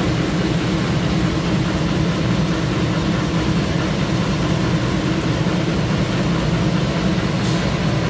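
Three-phase HVAC compressor with a seized, locked rotor giving a steady low hum while it is energised through the manually closed contactor. It is powered but does not start, drawing locked-rotor current of about 120 amps.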